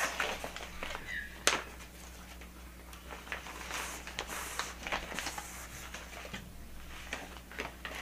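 Clear plastic packaging of a pack of braiding hair crinkling and rustling as it is handled, with a sharp click about a second and a half in.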